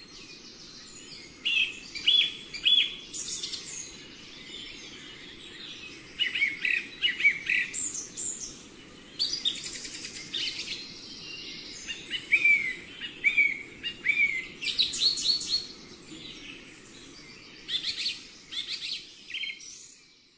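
Birdsong from a nature-sounds recording: birds chirping and singing in short, quick phrases throughout, over a faint steady background noise.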